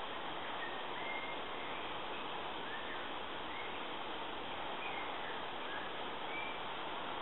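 Steady outdoor hiss with a scattering of short, faint bird chirps, about eight of them, spread through it.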